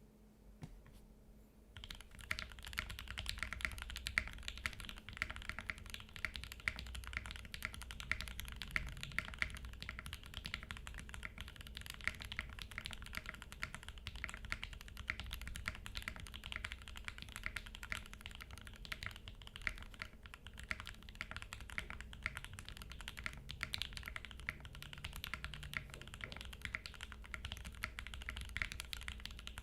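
Custom mechanical keyboard with lubed 62 g Banana Split linear switches on an FR4 plate being typed on continuously, a fast run of dense keystroke clacks that starts about two seconds in.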